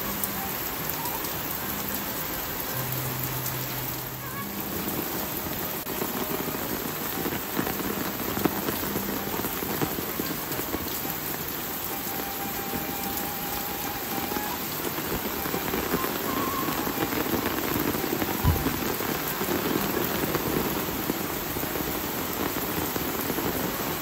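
Steady rain falling, a dense even patter with a few louder drops and a single sharp knock late on.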